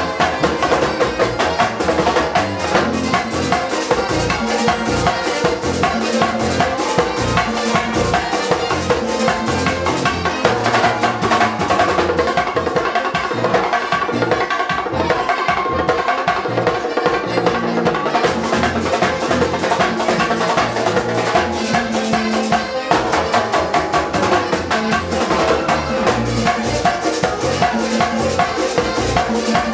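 Live Latin band music with a steady, driving percussion beat: drums and a metal güira scraping in rhythm under guitar and keyboard.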